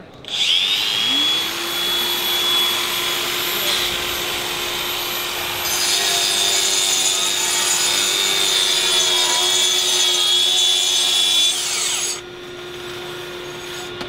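Makita XAG21 18V cordless 5-inch grinder spinning up with a high whine and grinding a concrete slab through a dust shroud. A Makita cordless dust-extraction vacuum, triggered wirelessly over Bluetooth (AWS) by the grinder's switch, starts about a second later and runs steadily. The grinder winds down about twelve seconds in while the vacuum keeps running.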